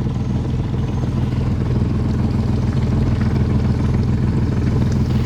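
Boat engine running steadily at low, canal cruising speed, a constant low hum.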